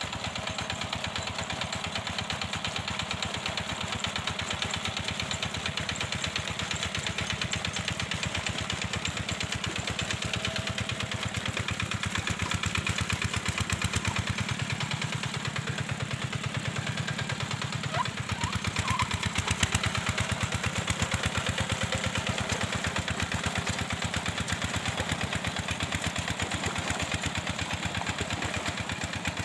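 Engine of a two-wheel walk-behind hand tractor running steadily with a rapid, even chugging pulse as it ploughs a flooded rice paddy.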